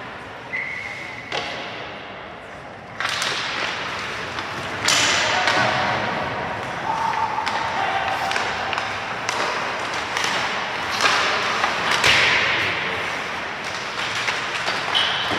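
Ice hockey play: repeated thuds and sharp clacks of the puck and sticks hitting each other and the boards.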